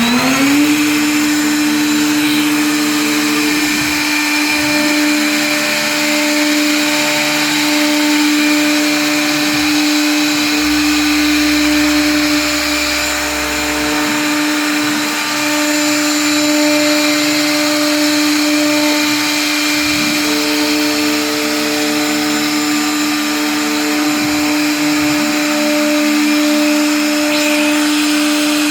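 CNC router spindle finishing its spin-up in a rising whine, then running at a steady high-speed whine. The axis drive motors hum at shifting pitches as the machine moves, over the steady noise of the router cutting folding grooves in composite panel.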